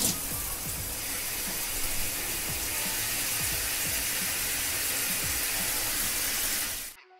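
Running shower water: a steady, dense hiss that cuts off suddenly about seven seconds in, over background music.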